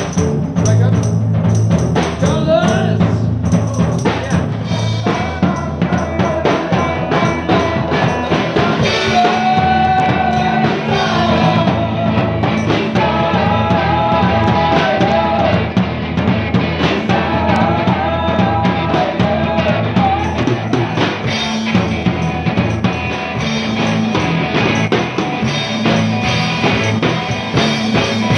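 Rock band playing live: drum kit, electric guitar and bass guitar, with a sung lead vocal.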